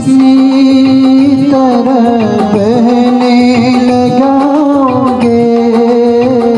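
A male voice singing a slow Hindustani ghazal with ornamented, wavering held notes, accompanied by harmonium chords and a light, steady percussion rhythm.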